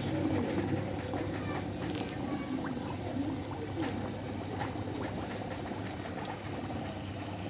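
Aquarium air pump running, its air line bubbling steadily into a bucket of water, with a low hum underneath and small pops of bursting bubbles.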